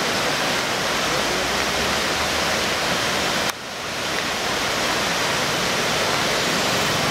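White-water river rapids rushing over a rocky ledge: a loud, steady wash of water noise. It drops away abruptly about three and a half seconds in and swells back within half a second.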